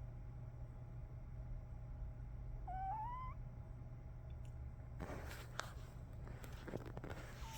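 Sleeping puppy snoring: a short, high whistling note through the nose that rises in pitch about three seconds in, then a rougher, breathy stretch with a few soft clicks from about five seconds in.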